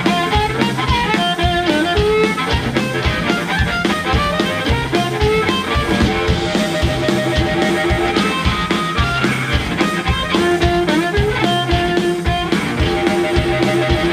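Live blues band playing: amplified harmonica holding long notes over electric guitar and drum kit, with a steady beat throughout.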